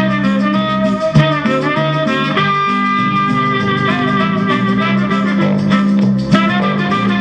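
Instrumental music from a vinyl record, played through a pair of 1950s Bell & Howell valve amplifiers (models 601 and 621) and their loudspeakers.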